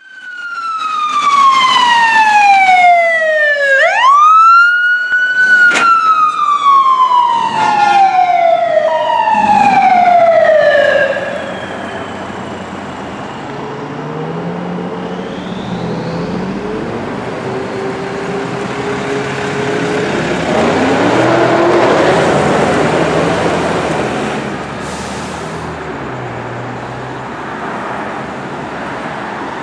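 Electronic sirens of a fire engine and a paramedic rescue ambulance responding code 3, wailing in slow falling and rising sweeps, then stopping about eleven seconds in. Heavy vehicle engines follow as the rigs drive past and pull up, loudest about two-thirds of the way through.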